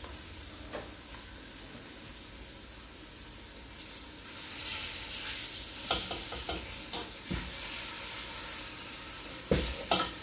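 Flour-dredged beef short ribs sizzling in hot olive oil as they sear in an enamelled pot over medium-high heat; the sizzle grows louder about four seconds in as the ribs are turned. A few light clicks and a louder knock near the end come from the ribs being moved against the pot.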